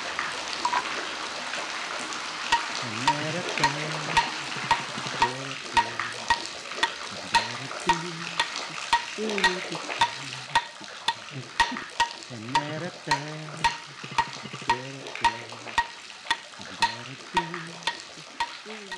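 Steady sizzling, crackling hiss of burning torch flames. Under it run regular sharp clicks about twice a second and clusters of low, gliding croak-like calls, from about two seconds in.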